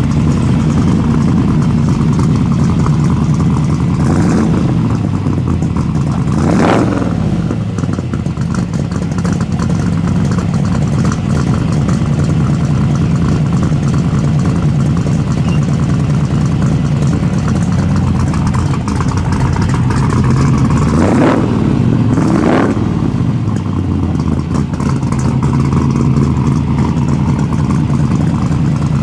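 1967 AMC Rambler Rebel factory drag car's dealer-built 390 cubic-inch V8 idling loudly, revved briefly and let fall back about seven seconds in and twice more around twenty-one seconds.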